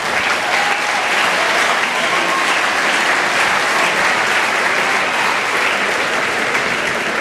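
Large stadium crowd of tennis spectators applauding, an even, sustained clapping.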